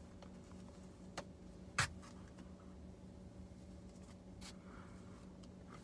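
Faint rustling and handling of a cloth face mask and hair, with a few small clicks, the sharpest about two seconds in, over a low steady hum.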